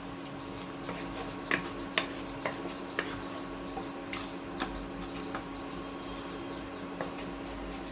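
Spatula clinking and scraping against a metal kadai as thick masala is stirred, in irregular knocks every half second to second, over a steady low hum.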